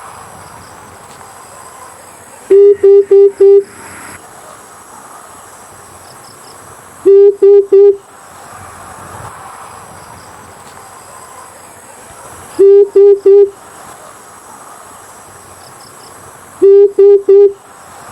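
Amethyst brown fruit dove calling: short series of loud, deep hooting notes, three or four in quick succession, repeated four times about every four to five seconds. A steady high insect drone runs underneath.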